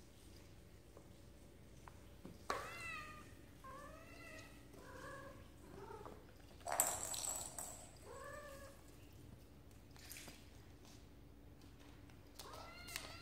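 A black-and-white long-haired domestic cat giving a string of short, arching chirps and meows while it plays with a feather wand toy. There is a brief noisy rustle about seven seconds in, which is the loudest moment.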